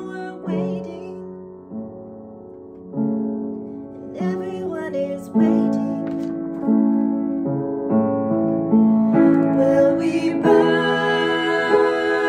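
Upright piano playing a slow run of chords, a new chord struck roughly every second and a quarter, with a woman singing along at times.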